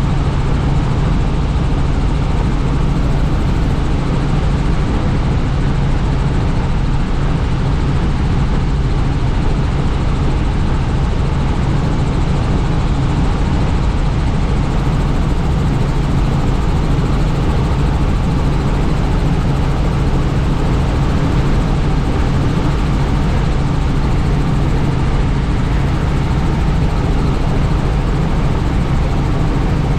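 Helicopter in steady flight heard from inside the open-doored cabin: a constant low rotor and engine hum under an even wash of wind noise.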